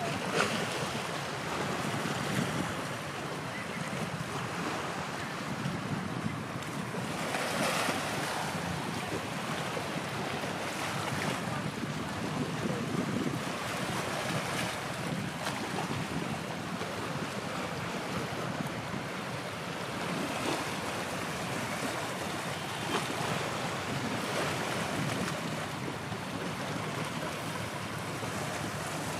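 Wind rushing over the microphone, with water lapping along the waterfront: a steady hiss that swells briefly about eight seconds in. The passing ship's engine cannot be heard as a distinct tone.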